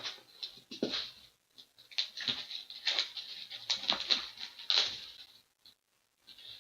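Trading card box being opened by hand: irregular rustling and scraping of its cardboard and wrapping, with a brief pause near the end.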